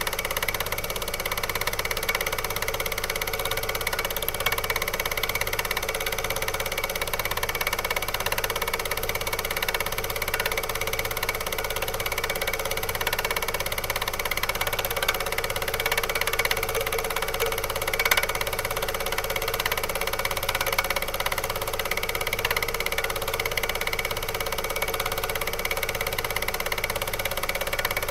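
A machine running steadily, with a low pulse about once a second.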